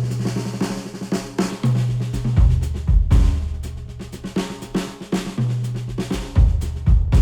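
Instrumental music with a drum kit (snare and kick hits) over a sustained bass line, played back through headphones and recorded with microphones at the earcups.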